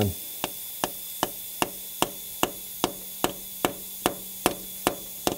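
Light, evenly paced hammer taps, about two and a half a second, on a socket and extension. They are driving a new valve stem seal down onto the valve guide until it seats.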